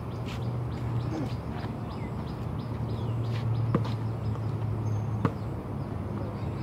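A basketball bouncing on an outdoor hard court: scattered light thuds, with two sharper ones a little past halfway and about a second and a half later. Under it runs a steady low hum, with faint high chirps.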